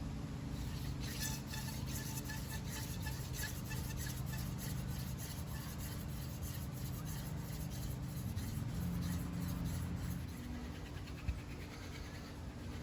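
Horseweed hand-drill spindle spun between the palms on a tulip poplar fireboard: wood grinding on wood in quick repeated rasping strokes, the friction that builds hot dust toward an ember. The strokes ease off about ten seconds in.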